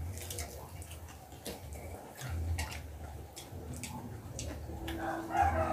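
Chewing and lip-smacking of people eating with their hands: a scatter of short, sharp mouth clicks over a low rumble. Near the end, a brief pitched call with overtones.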